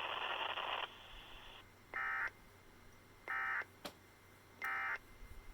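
NOAA Weather Radio EAS broadcast: a brief stretch of static, then three short, buzzy SAME digital data bursts about a second and a third apart. These are the end-of-message (EOM) codes that close the Required Weekly Test.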